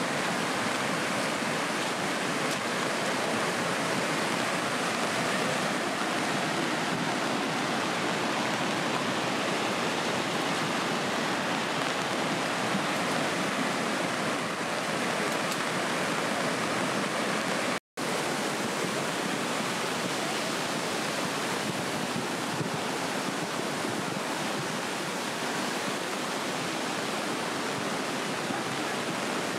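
Steady rush of a swollen, muddy river in flood, an even, unbroken torrent noise. It cuts out for an instant about two-thirds of the way through.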